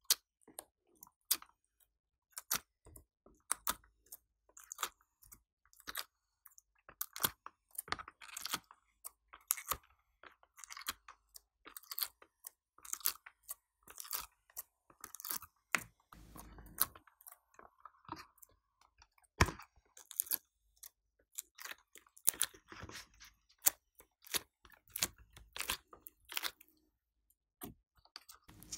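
Sticky clicks and crackles as pieces of coloured clay are pushed and peeled out of a flexible silicone mold, several snaps a second at an uneven pace.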